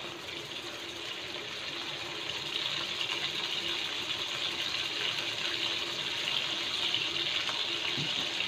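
Shrimp frying in melted butter in a nonstick wok: a steady sizzling hiss that grows a little louder as it goes.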